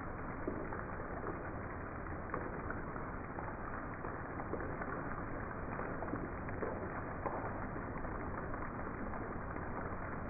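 Heavy rain falling steadily, a dense even hiss with many small drop impacts through it.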